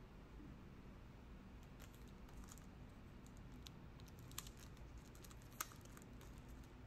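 Near silence: room tone with a scattering of faint clicks and taps from pencil boards being handled and put away, two of them a little sharper past the middle.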